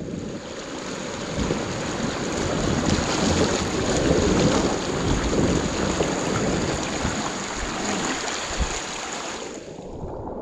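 Shallow creek water rushing and splashing over rocks around a river tube, close to the microphone. It dies down near the end as the tube drifts into calmer water.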